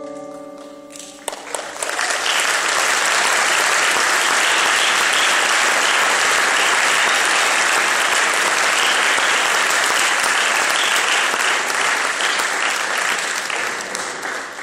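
The last chord of a marimba ensemble rings and dies away over the first second or so, then an audience applauds, starting about a second and a half in and thinning out near the end.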